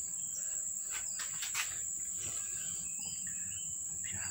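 Steady high-pitched drone of insects, such as crickets, with a few light clicks about a second and a half in and some short chirps in the middle.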